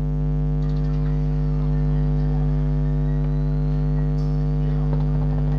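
A pair of JBL Flip 4 Bluetooth speakers playing music with a deep, steady bass drone held unchanged throughout, recorded through a phone microphone.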